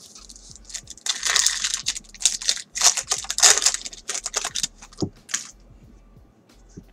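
Foil wrapper of a 2017 Bowman's Best baseball card pack being torn open and crumpled by hand: a run of crinkling, crackling rustles that starts about a second in and dies away after about five seconds.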